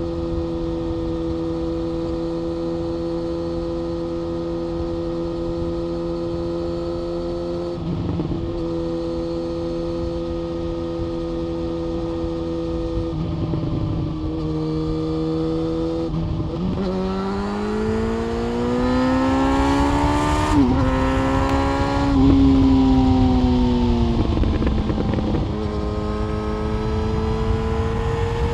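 Yamaha FZ1 Fazer's inline-four engine through an SC-Project exhaust, under way at steady revs for about the first half with a few brief dips. Then it revs up hard, with a quick break for a gear change partway up. It eases off and picks up again near the end.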